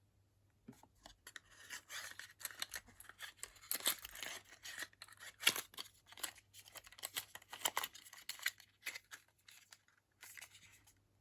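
Product packaging handled and opened by hand: a run of crackling, rustling and tearing with sharp snips, pausing briefly near the end.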